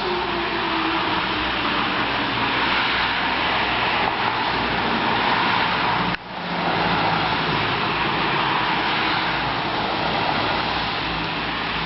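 Federal Signal STL-10 fire siren sounding on a test: a loud, steady rushing sound with a tone that swells and fades as the siren turns. A lower tone falls in pitch over the first couple of seconds, and the sound drops out sharply for a moment about six seconds in.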